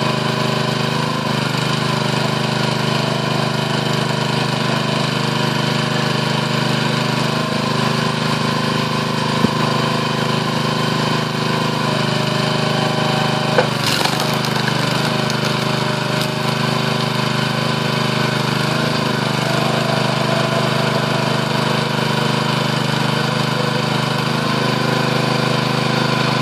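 Powerhorse 22-ton log splitter's small gasoline engine running steadily while the hydraulic ram pushes a log into the wedge. A single sharp crack about halfway through as the log splits.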